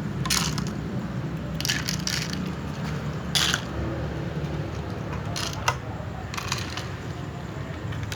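Cats eating, with short crisp crunching bites every second or so over a steady low hum.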